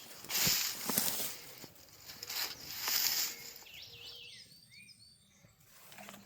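Two spells of rustling with a few sharp clicks, then a few short bird chirps about four seconds in.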